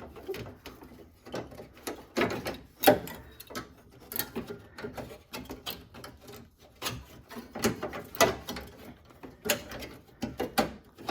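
A new metal hood latch and its release cable being handled and fitted by hand: irregular clicks, taps and small rattles of metal parts, the sharpest about three seconds in.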